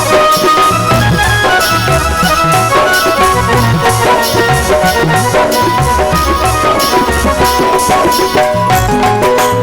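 Instrumental passage of a Rajasthani folk bhajan: a sustained reed-keyboard melody over a steady hand-drum beat.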